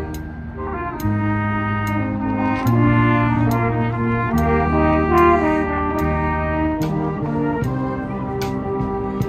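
A school wind band playing a send-off tune: brass holding full chords over a moving bass line, with a steady drum-kit beat and a cymbal hit a little more than once a second.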